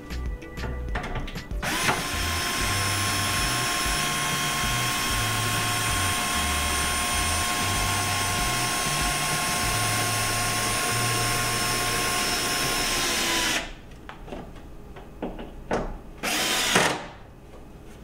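DeWalt 12-volt cordless drill/driver running steadily for about twelve seconds, driving a mounting bolt down into the top of an over-the-range microwave, then stopping. A short final burst follows near the end.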